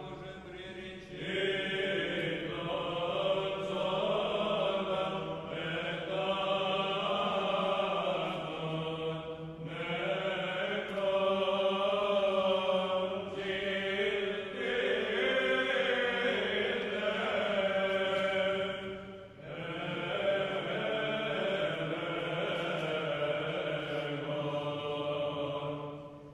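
Background music: slow, chant-like singing in long held notes over a steady low tone, with short pauses between phrases.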